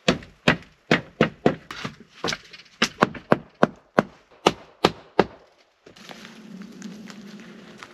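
Wood being chopped with a blade: a rapid series of sharp knocks, about three a second, stopping about five seconds in. A steady low hum with a faint hiss follows.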